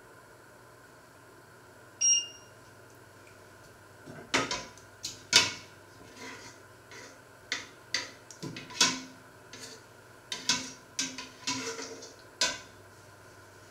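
An electric hob's touch control beeps once, about two seconds in. Then a metal ladle clinks, knocks and scrapes against a stainless steel pot as it stirs a thick liquid: a string of irregular sharp knocks lasting about eight seconds.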